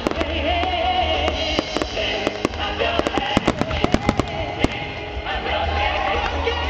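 Fireworks going off in quick succession, many sharp bangs and crackles that come thickest in the middle, over music with a held melody.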